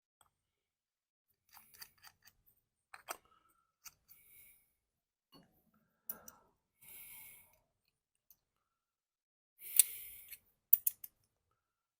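Light clicks and taps of small metal carburetor parts being handled and fitted together by hand, with a few brief scraping sounds, as the float bowl and its drain bolt go back on.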